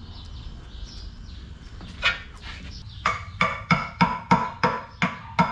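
Hammer blows on a chisel wedged into the oil pan joint of a Mercedes OM 352A diesel engine, forcing off a sump still held by one screw whose head has broken off. One blow about two seconds in, then a steady run of about three ringing metallic blows a second. Faint bird chirps sound before the hammering.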